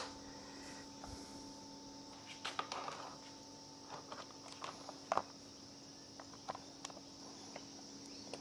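Faint scattered clicks, taps and rubbing of hands working a grip onto a motorcycle handlebar, a few slightly louder knocks about two and a half and five seconds in, over a steady high insect drone.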